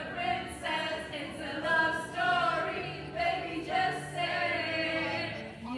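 Karaoke: a roomful of voices singing along together to a pop song over its backing track, with long held sung notes.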